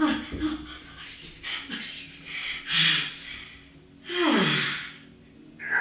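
A man gasping and breathing hard in short breathy bursts, then a long breathy sigh about four seconds in whose voiced groan falls in pitch.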